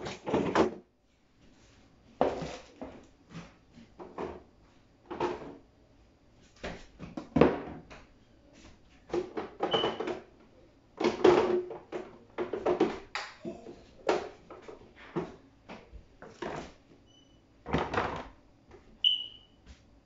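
Irregular knocks, thuds and clatters of food containers, shelves and drawers being handled as a refrigerator is emptied. A few short high beeps sound, mostly near the end.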